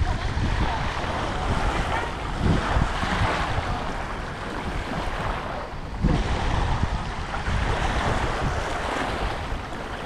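Small waves lapping and washing onto a pebbly shoreline, with wind buffeting the microphone in an uneven low rumble.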